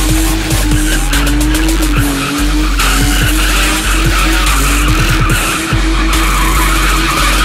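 BMW E30 doing a burnout: the engine is held steady at high revs while the spinning rear tyres squeal and hiss on the tarmac.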